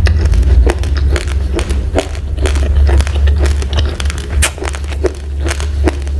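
Close-up chewing of uncooked rice grains: sharp, irregular crunches, several a second, over a steady low rumble.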